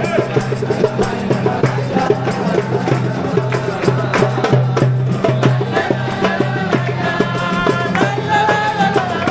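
Music with a quick, steady percussive beat over a held bass line; a melody line comes in over the second half.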